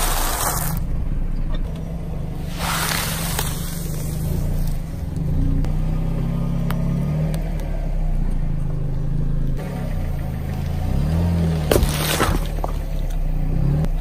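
Crisp tortilla chips crunching under a slowly rolling car tyre, in two long crunches in the first few seconds, over a low steady hum. Near the end, a few sharp cracks as something bursts under the tyre.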